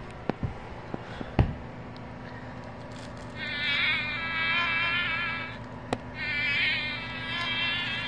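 Sound chip in a Wild Republic plush fly playing a recorded insect buzz twice, each time for about two seconds, with a click of the button just before the second buzz. The buzz is thin and tinny, with nothing in the low range, as from a toy's small speaker.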